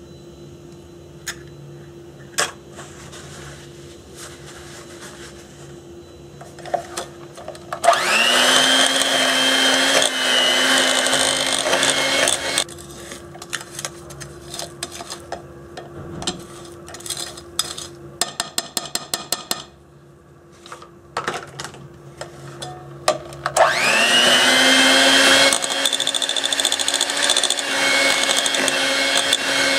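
Electric hand mixer beating cookie batter in a glass bowl. It runs in two bursts, each starting with a rising whine as the motor spins up: one for about five seconds starting about eight seconds in, and another from about 24 seconds in to the end. Between the runs there are scattered clicks and knocks.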